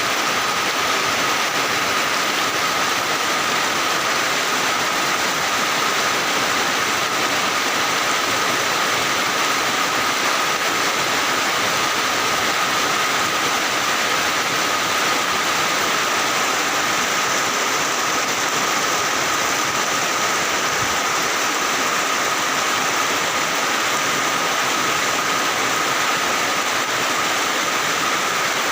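Heavy rain falling steadily, an even wash of noise with a thin high tone held throughout.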